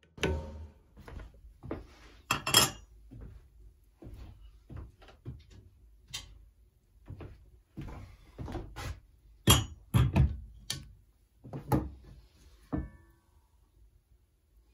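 Irregular knocks, thunks and clinks of hard objects being handled and set down, a few a second with gaps, one clink near the end ringing briefly.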